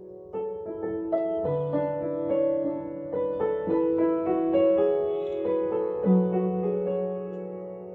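Piano music: a run of struck notes ringing over held lower notes, growing louder shortly after it begins.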